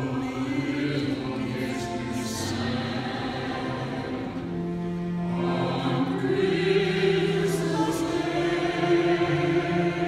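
Soprano singing with an orchestra and chorus: long held notes with vibrato over strings.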